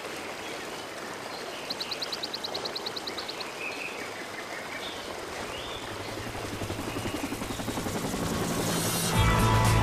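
Rushing water from a waterfall and stream, with a rapid high trill about two seconds in. An even pulsing grows louder from about six seconds, and music comes in near the end.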